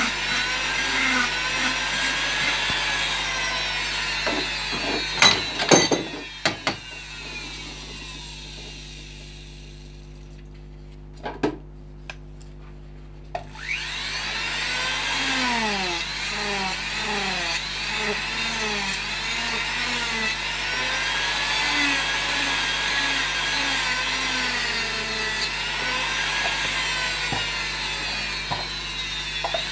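Handheld power carving tool grinding bulk wood off a carving held in a bench vise. Its whine rises and falls as the cutter loads up in the wood. It winds down and stops about six seconds in, with a few knocks during the pause, then spins up again and keeps cutting.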